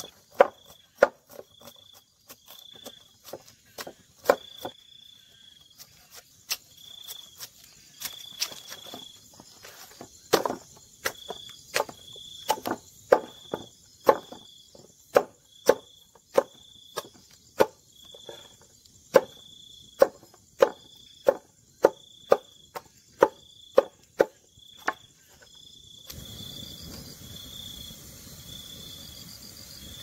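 Machete blows chopping a bamboo stalk on a wooden board, sharp knocks coming sparsely at first, then about one to two a second, with crickets chirping steadily behind. Near the end the chopping stops and a steady hiss takes over.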